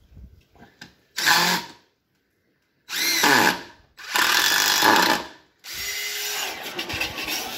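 DeWalt DCF885 18V cordless impact driver driving screws into wood in three short bursts, its motor winding up and down. Near the end it starts running continuously as it is lowered into a bucket of water.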